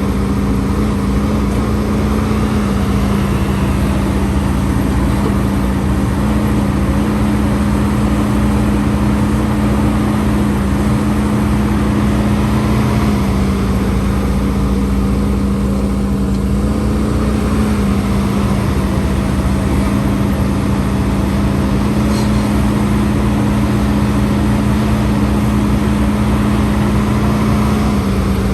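HIDROMEK HMK230LC excavator's diesel engine running steadily at a constant speed: a continuous loud hum with only slight shifts in pitch.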